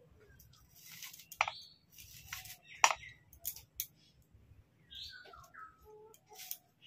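Kitchen knife chopping banana-flower florets against a wooden block: a string of irregular sharp taps, the loudest about three seconds in.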